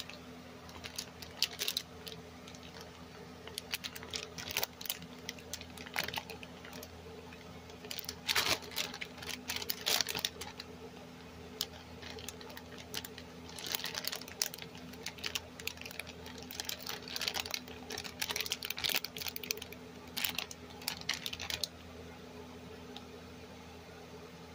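Clear plastic packaging of freezer pops crinkling and crackling in irregular bursts as it is handled and turned over, stopping a couple of seconds before the end. A steady low hum runs underneath.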